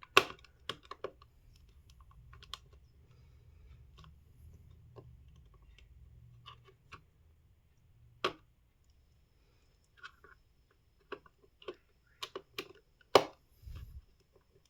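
Irregular sharp clicks and taps of a small screwdriver and the plastic casing of a wireless mouse being handled while a screw is backed out. The loudest clicks come just after the start and about 13 seconds in.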